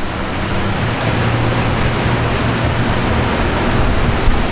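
A 34-foot Yellowfin center-console boat running on open water: a loud, steady rush of wind and water with a low, even engine drone underneath.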